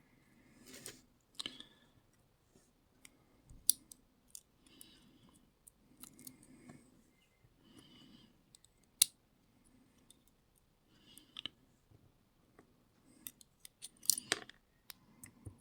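Small metallic clicks and taps of an Abus EC880 dimple lock being taken apart by hand, its pins and springs coming out and being handled. A few sharper clicks stand out, about 4, 9 and 14 seconds in, between softer rustles.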